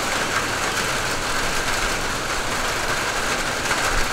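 Steady rain falling, an even hiss that carries on without a break.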